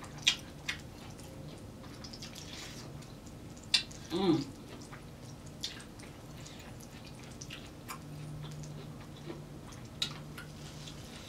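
Wet, sticky eating sounds of corn on the cob dipped in cheese sauce: scattered lip smacks and clicks of chewing, with a short hummed "mm" about four seconds in.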